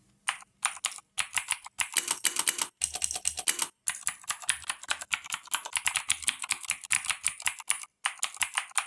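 Mechvibes software sound effect of Cherry MX Blue switches with PBT keycaps: fast clicky mechanical keystrokes, a few single clicks at first and then rapid runs, with two brief pauses.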